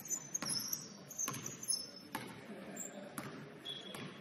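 Basketball bouncing on a hardwood gym floor, sharp knocks about once a second, with short high-pitched sneaker squeaks between them.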